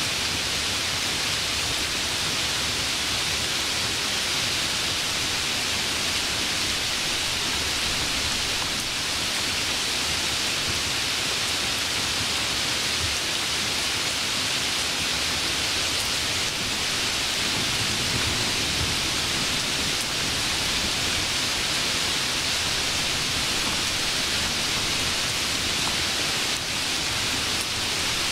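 Steady, even hiss of noise with no breaks or changes.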